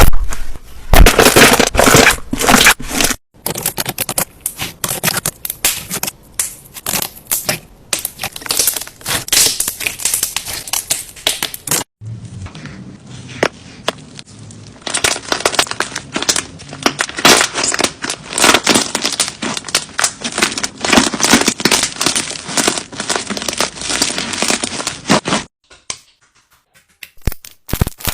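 Slime being squeezed and poked by hand, making dense runs of wet crackles and pops, in separate edited clips that change abruptly about 3 and 12 seconds in. The crackling stops a few seconds before the end.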